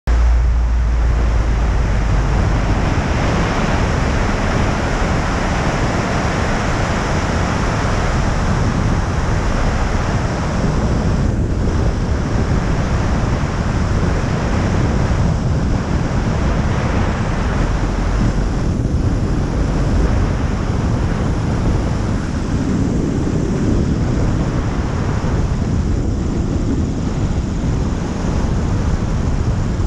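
Loud, steady rush of airflow buffeting a camera mounted outside a Pipistrel Virus SW 100 light aircraft in flight: wind noise on the microphone.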